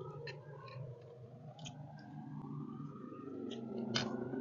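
A person eating, with scattered sharp mouth and chewing clicks over a low steady hum.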